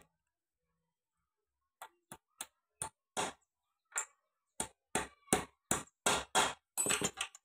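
Small hammer tapping a new release finger and its pin into place on the clutch pressure plate of a Mahindra Arjun 555 tractor. About fifteen short, sharp taps start about two seconds in and come faster and louder toward the end.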